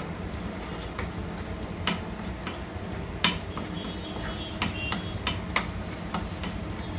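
Wooden spatula knocking and scraping in a nonstick frying pan as a ground masala paste is stirred while it fries in oil. Irregular sharp taps about once a second, the loudest a little past the middle, over a steady low hum.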